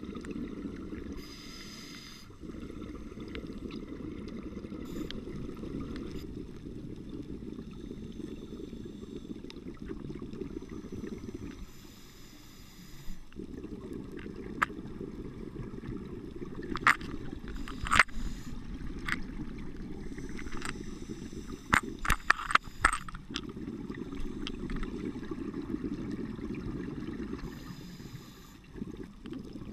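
Scuba breathing heard underwater through a camera housing: long low bubbling rumbles of exhaled air broken three times by a short hiss from the regulator. A cluster of sharp clicks comes in the middle.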